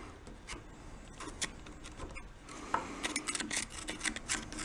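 A hand tool scraping and picking packed dirt and debris out of the cooling fins of a Kohler twin engine's cylinder. The packing is heavy enough to cause overheating. It comes as a run of scratchy clicks and scrapes that gets busier about halfway through.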